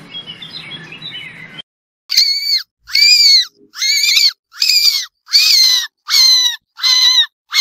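Elephant shrew's high-pitched squeaks, repeated about once every 0.8 s, seven or so in a row, each rising and then falling in pitch. Before them is a second and a half of faint hiss with a few weak chirps.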